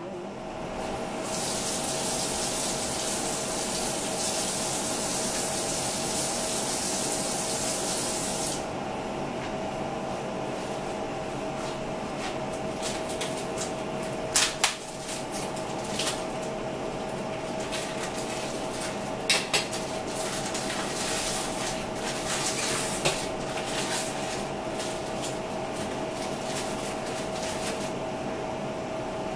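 A steady hiss for about seven seconds that stops abruptly, over a constant hum. Later come a few sharp clicks and light taps.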